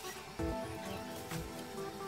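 Background music: held notes over a low beat about once a second.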